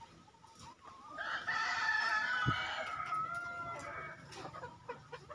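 Lohmann layer chickens: one long drawn-out crowing call starting about a second in and lasting over two seconds, then softer short clucks. A brief low thump comes partway through.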